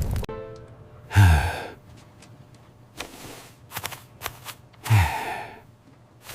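Two weary sighs, each a breathy exhale with a voice falling in pitch, about four seconds apart. Faint soft clicks come between them.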